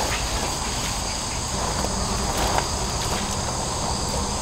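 Steady chorus of insects chirring in the trees, over a low, even rumble.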